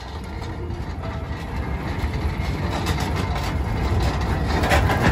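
Manual pallet jack loaded with a vending machine rolling over asphalt, its wheels rumbling and rattling, getting louder toward the end.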